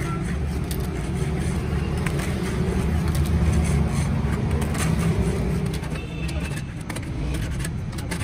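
A flat metal file rasping in short strokes along the edges of a stack of lead-acid battery plates, over a steady low rumble.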